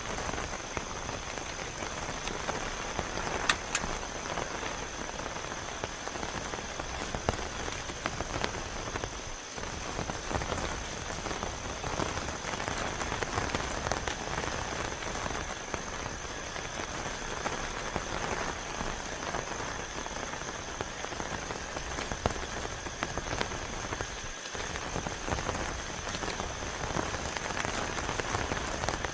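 Heavy rain falling steadily, with a constant thin high-pitched tone running through it. There are two sharp clicks about three and a half seconds in.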